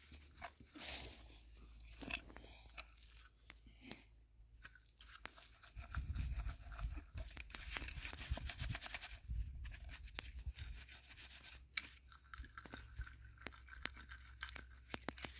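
Dirt being shaken through a wooden-framed mesh trap sifter to cover a trap at a dirt-hole set: a soft gritty rustle with scattered small crunches, busiest in the middle.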